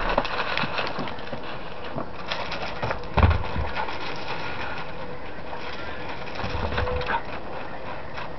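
Steps crunching on gravel in uneven bursts, with a heavier thump about three seconds in.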